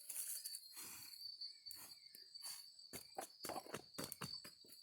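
Dry twigs and leaf litter rustling and snapping close by, a quick irregular string of crackles and small knocks. A steady high chirring of crickets runs underneath.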